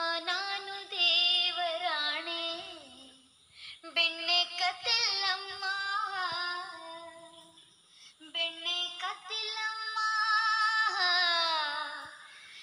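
A high voice singing unaccompanied, in three long phrases with wavering held notes and slides in pitch.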